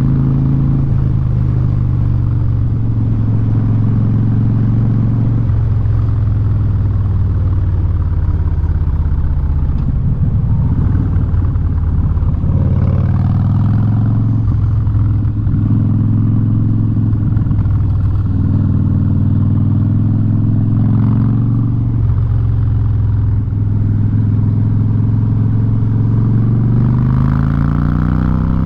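2017 Harley-Davidson Street Bob's V-twin running loud through a Vance & Hines exhaust while riding, its pitch stepping up and down several times as the throttle is rolled on and off and the gears change. Near the end the engine note falls as the bike slows.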